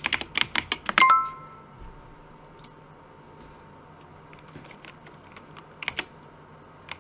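Computer keyboard typing in a quick run of keystrokes, ending in a short bright chime from the language-learning app about a second in as the typed answer is accepted. A few more keystrokes come near six seconds.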